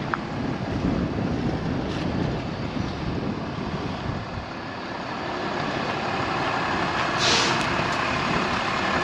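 Pickup truck engine running steadily under a plow-equipped truck, with a short hiss about seven seconds in.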